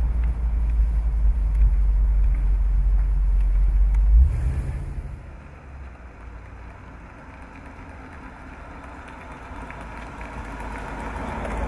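1979 Rolls-Royce Corniche convertible with its 6.75-litre V8, driving. For the first four seconds or so there is a loud, steady low rumble of engine and road noise heard from inside the car. Then it turns quieter as the car is heard from outside driving up, growing louder near the end as it approaches.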